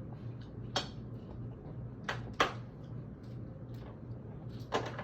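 Four sharp clicks and knocks of small hard parts being handled, a small handheld torch and its screw-on attachment, the third knock the loudest, over a steady low hum.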